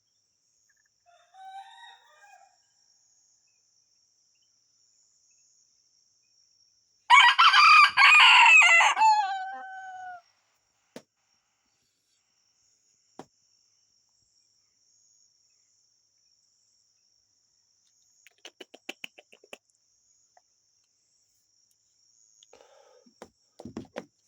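Rooster crowing once, loudly, about seven seconds in, a crow of about three seconds whose tail drops in pitch. There is a faint short call shortly after the start.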